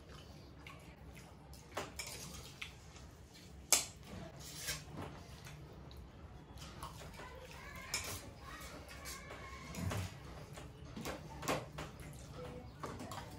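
Fingers scraping and clinking against plates as several people eat noodles quickly by hand, in scattered light clicks and scrapes; the sharpest clink comes about four seconds in.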